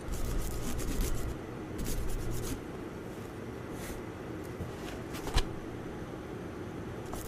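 Quiet rubbing and handling noise with a few light clicks and one sharper knock about five seconds in; low rumble in the first couple of seconds.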